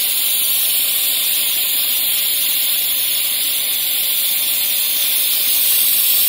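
Bridgeport EZ-Trak CNC mill drilling a through hole in a metal tube under mist coolant. A steady, even hiss of the coolant spray is the main sound, with no change in rhythm.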